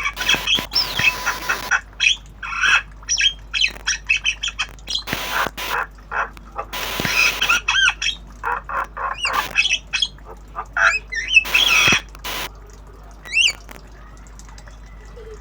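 Javan myna calling in a rapid, varied run of clicks, chatter, harsh squawks and short whistled notes that sweep up and down, with brief pauses; it is a young bird practising sounds.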